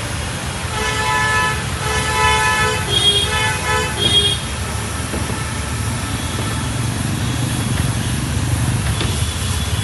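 Vehicle horns honking several times in the first half, over a steady low engine rumble.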